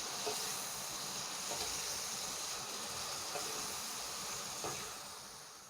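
Stir-fried squid and potato sizzling in hot oil in a pan: a steady hiss with a few faint ticks, fading out near the end.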